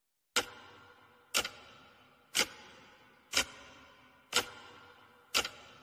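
Six sharp ticks, one each second, each fading out over about half a second, like a clock ticking.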